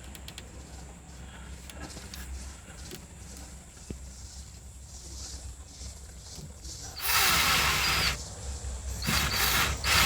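A low steady hum, then two loud spells of rasping, scraping noise: one lasting about a second around seven seconds in, and a choppier one starting about nine seconds in.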